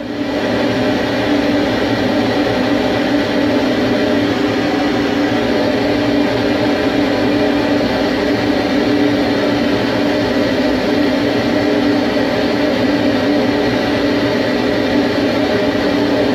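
CNC lathe running idle with a steady hum of several tones, one low and strong and a fainter higher one, while the tool is set between the chuck jaws.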